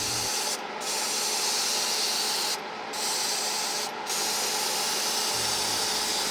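Spray gun hissing steadily as it sprays a coat of DuraCoat firearm finish, with three brief breaks in the spray.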